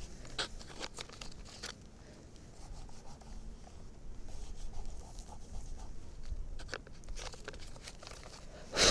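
Soft pastel sticks scratching and tapping in short strokes on sketchbook paper, under a low wind rumble on the microphone, with a louder short rustle near the end.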